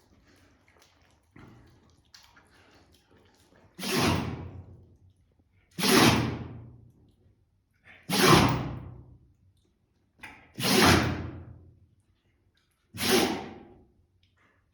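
A dog sneezing five times, roughly every two to three seconds, each sneeze sudden and loud and dying away over about a second. The sneezing is taken by the man feeding her as a sign she has caught a cold.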